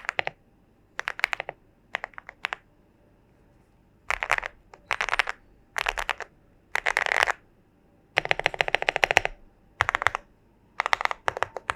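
Typing on a Leobog Hi75C Pro mechanical keyboard with Akko Crystal Blue switches, a PC plate, gasket mount and full foam, giving a thocky keystroke sound. The keystrokes come in short bursts of rapid presses separated by pauses, with one longer fast run of about a second about two-thirds of the way through.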